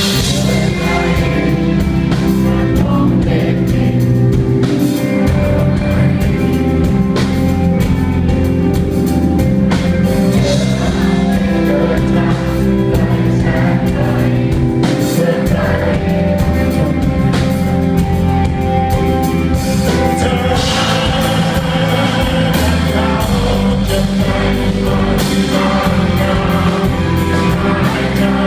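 Live rock band playing a song: a lead voice singing over drum kit and guitar.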